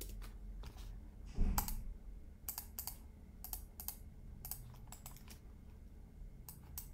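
Computer keyboard typing and mouse clicks: scattered sharp, irregular clicks, with one louder low thump about a second and a half in.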